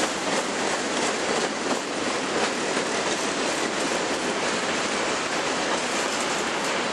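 Freight train rolling past close by: steel wheels of boxcars and covered hopper cars running on the rails in a steady rushing noise, with wheel clicks over rail joints, more frequent in the first couple of seconds.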